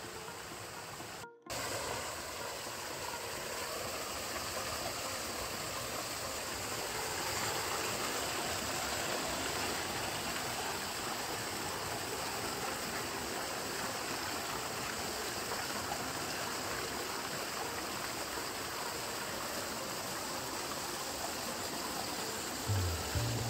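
Steady rush of flowing water from a forest stream falling over rocks, cut off briefly by an edit about a second in.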